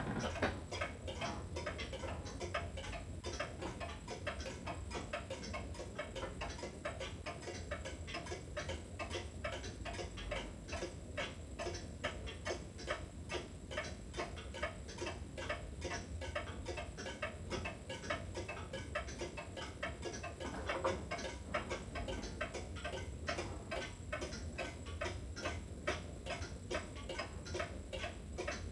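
Antique pendulum shelf clock ticking steadily and evenly, its escapement beating in a regular rhythm as the pendulum swings.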